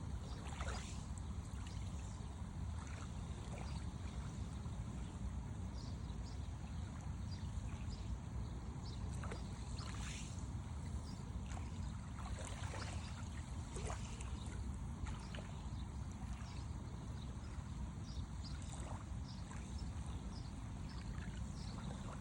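Small sea waves lapping and splashing at the water's edge, with many short, irregular splashes over a steady low rumble.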